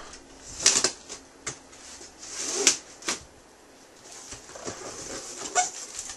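Packaging being handled during an unboxing: rustling with several sharp knocks and clicks.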